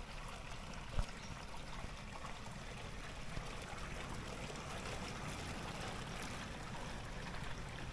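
Flowing water rushing steadily, with a single short knock about a second in.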